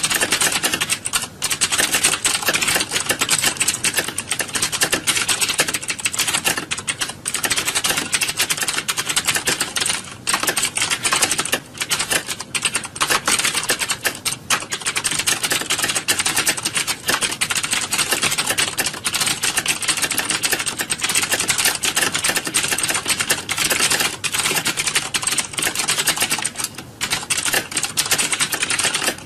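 Many computer keyboards being typed on at once, a dense, continuous clatter of overlapping key clicks like a typing exam hall, with a few brief lulls.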